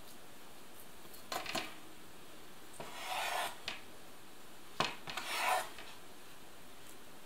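Kitchen knife cutting boiled new potatoes on a wooden cutting board: a few short scraping strokes of the blade through the potato, each with a sharp tap of the blade on the board, the loudest tap about five seconds in.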